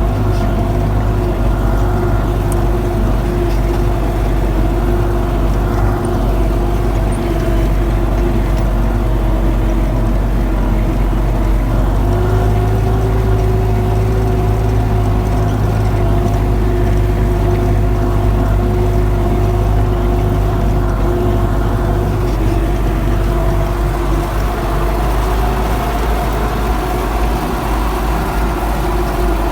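MTZ-82 tractor's four-cylinder diesel engine running steadily under load while ploughing. Its pitch rises slightly about twelve seconds in and eases back down later on.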